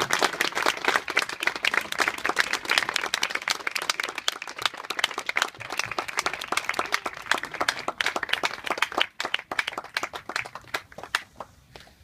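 Audience clapping, dense at first, then thinning to scattered claps and dying away near the end.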